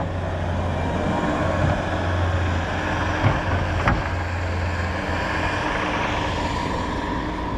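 A motor vehicle engine running with a steady low hum over a noisy hiss, the hum weakening after about five seconds, with a couple of short knocks in the middle.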